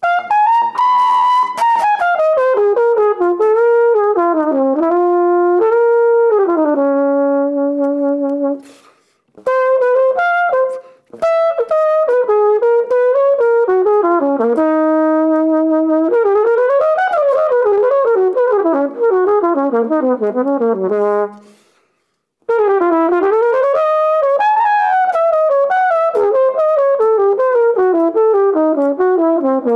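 Unaccompanied flugelhorn playing a jazz solo: a single melodic line in flowing runs and held notes, broken by short pauses about nine seconds in and again past the twenty-second mark.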